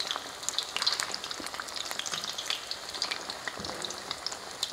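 Batter-coated cauliflower florets deep-frying in hot oil in a metal kadhai: a steady crackling sizzle full of small pops as the batter cooks toward crisp, while a slotted metal spoon turns the pieces over.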